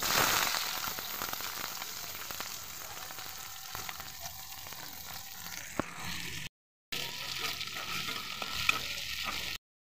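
Sliced onions and green chillies dropped into hot oil in a metal kadai: a loud sizzle as they hit the oil, settling into steady frying. A couple of sharp clicks stand out, and the sound cuts out briefly twice.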